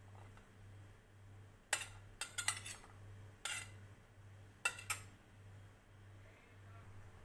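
Metal spoon clinking and scraping against a steel plate and glass bowl while chopped vegetables are scooped out: a run of sharp clinks between about two and five seconds in, several bunched together near the start of the run.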